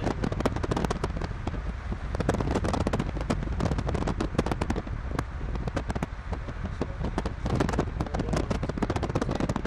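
Dense, irregular hard ticks of storm precipitation striking a moving vehicle's roof and windshield, over a steady low road rumble.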